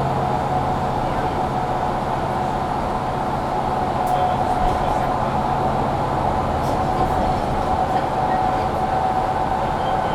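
Mercedes-Benz Citaro C2 G articulated bus heard from inside while driving: steady drivetrain and road noise, with a steady high whine over it from the loud cabin heater.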